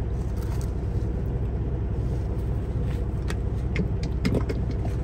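Steady low rumble of a semi truck's idling diesel engine, heard inside the cab. Between about three and four and a half seconds in come several light clicks and taps, as the bottle of ranch dressing is picked up and handled.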